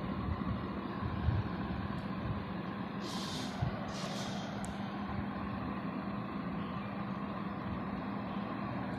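Steady background hum and noise, with a soft knock about a second in and two brief hissy rustles about three and four seconds in.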